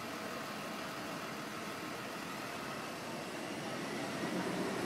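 Steady noise of street traffic and vehicle engines, growing a little louder near the end.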